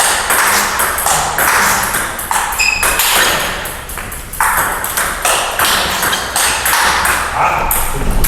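Table tennis rally: the celluloid ball clicking off the bats, one faced with Dr Neubauer Tornado Extreme short-pips rubber, and bouncing on the table in a quick run of blocks and counter-attacks. The hits come several times a second and keep going without a break.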